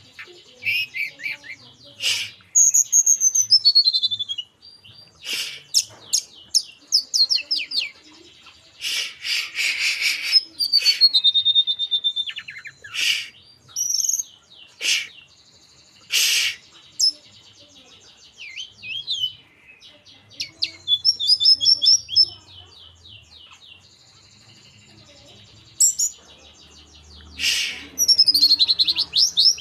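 Tledekan gunung songbird singing: bursts of rapid trills and falling whistled phrases mixed with sharp, short call notes, separated by brief pauses.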